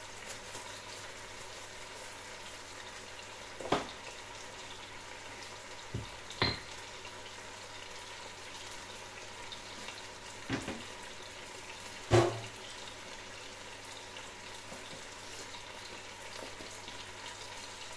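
Mussels sizzling steadily in a frying pan with a little water. Five sharp clicks break in at intervals, the loudest about twelve seconds in.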